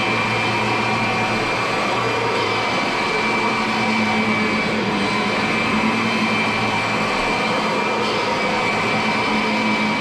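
Kirby upright vacuum cleaner running steadily while pushed over carpet: a constant rush of air with a steady high whine from the motor.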